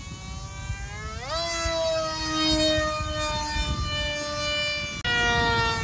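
Small RC plane's motor whining overhead. The pitch rises sharply a little over a second in as the motor speeds up, holds steady, then drops abruptly near the end, over a low rumble.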